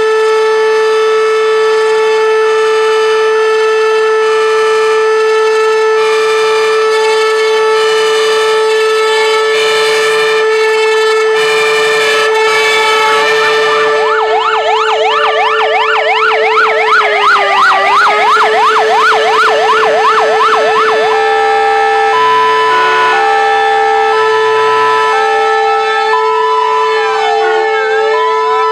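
Several sirens sounding together: a steady, held siren tone throughout, joined by fire engines' electronic sirens. About halfway in they sweep rapidly up and down, about three times a second, then switch to an alternating two-tone hi-lo pattern.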